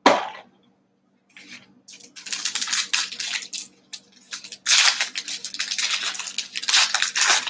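Foil wrapper of a Panini Select football card pack being torn open and crinkled by hand, in irregular bursts of crackling that grow denser and louder about halfway through.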